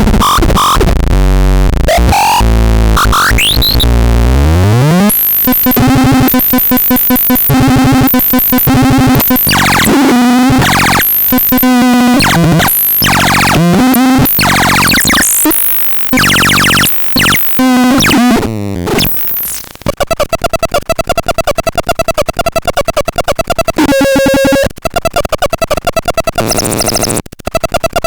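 Harsh electronic synthesizer noise from the Petit Chat: squealing pitch sweeps and a long falling glide in the first few seconds, then choppy stuttering tones, turning into a fast, even buzzing pulse in the second half.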